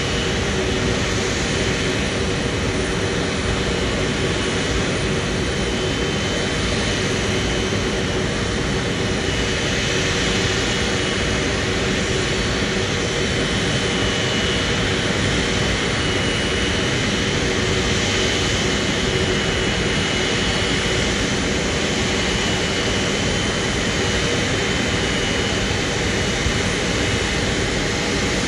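Airbus A330-200F freighter's twin jet engines running while it taxis past, a steady rush with a steady high whine and a lower hum.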